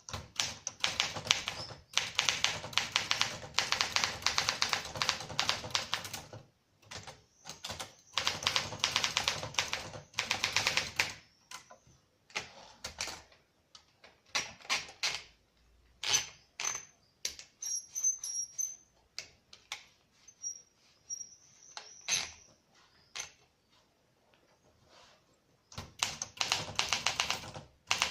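Olympia SM9 manual typewriter being typed on: fast runs of sharp keystrokes lasting a few seconds each, broken by pauses with scattered single strikes.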